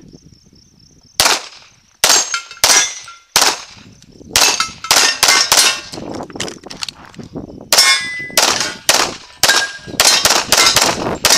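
CZ pistol firing rapid shots at steel plate targets, with many hits followed by a short metallic ring from the struck plate. The shots come in two fast strings with a break of about a second and a half between them, around six to seven and a half seconds in.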